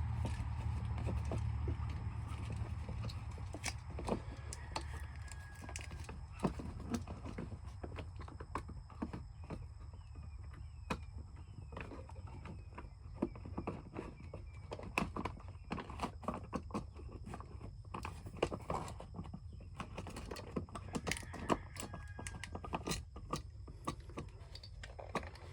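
Irregular clicks and knocks of hands and a screwdriver working on an electrical outlet, as wires are fastened and the outlet is fitted back into its box. A low rumble sits under the first couple of seconds.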